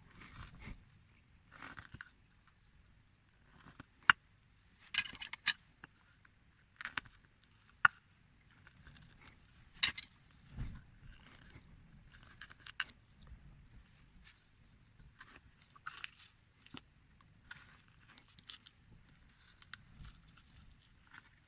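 Hand carving on a small figure: a blade cutting and scraping in short, irregular strokes, with a few sharp clicks.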